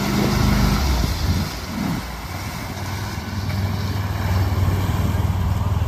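Argo 8x8 amphibious ATV's engine running as it drives through a river, its wheels churning the water into spray. The engine note swings briefly about two seconds in, then holds steady.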